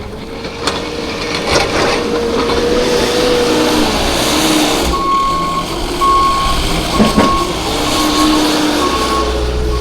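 A truck's engine running loud and steady. About halfway in, its reversing alarm starts: a high beep repeating roughly once a second.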